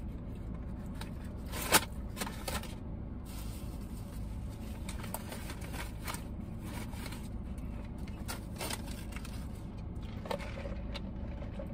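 Paper wrapper of a fast-food pie rustling and crinkling as it is handled and unwrapped, with scattered light clicks and one sharper click about two seconds in, over a steady low hum.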